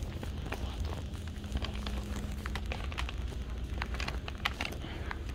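Footsteps in loose slide sandals on a hard floor: irregular slaps and clicks, several a second, over a low rumble from the handheld camera being carried.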